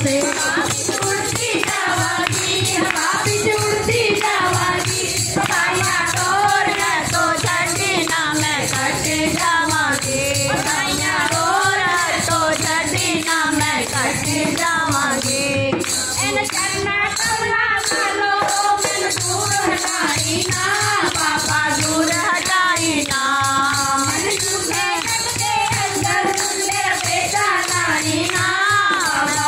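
A group of women singing a devotional bhajan together, backed by a dholak barrel drum and a steady jingling percussion beat.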